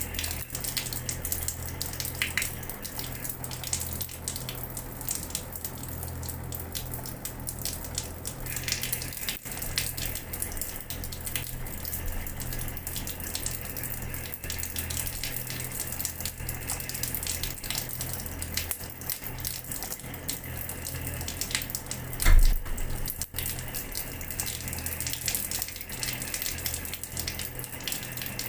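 Water running from a tap and splattering onto a floor, a steady splashing with many small patters, over a low hum. A single dull thump stands out about three-quarters of the way through.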